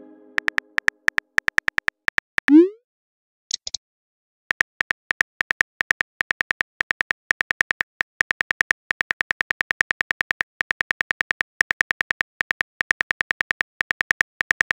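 Phone keyboard typing clicks from a texting-story app, an even run of short ticks several a second. A brief pause is broken by a rising swoop, the message-sent sound, about two and a half seconds in, then a short high blip, after which the typing clicks resume.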